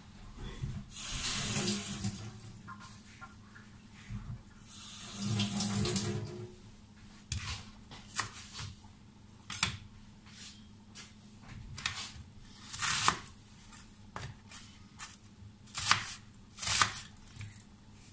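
Kitchen tap running briefly twice, then a series of scattered knocks and clacks as a wooden cutting board, kitchen knife and onion are handled on the counter.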